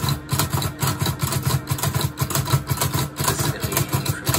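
Olivetti Lettera 25 portable typewriter typed on quickly: a rapid, uneven run of keystrokes and typebars striking the paper, several a second, stopping abruptly at the end.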